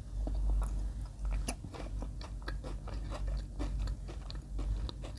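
Close-up chewing of a mouthful of Ovomaltine Crunchy spread, with many small, irregular crunches from its crunchy malt pieces.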